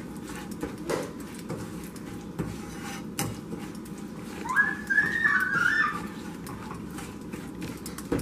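A spoon scraping and clicking against a nonstick frying pan, stirring sugar as it melts into caramel. About halfway through, a brief whistle-like sound steps between a few high pitches for about a second and a half.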